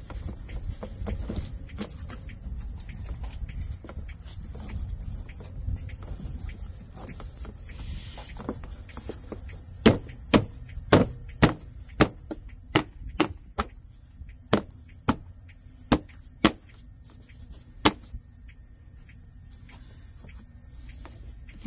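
Insects chirring steadily in a high, even drone. In the middle of it comes a run of sharp clicks and knocks, about two a second, from hands working on the engine bay.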